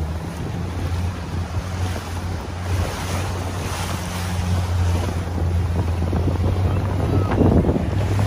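Wind buffeting the microphone and choppy sea water splashing around a rigid inflatable boat, over the steady low hum of the boat's outboard motor. The splashing grows louder near the end.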